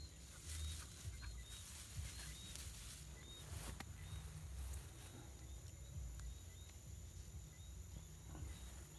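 Faint open-field ambience: a low wind rumble and rustling at the microphone, with a small high chirp repeating about twice a second over a thin steady high tone.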